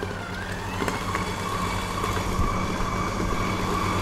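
KitchenAid Professional stand mixer running with a steady motor hum, its flat beater creaming sugar and shortening with eggs in the steel bowl.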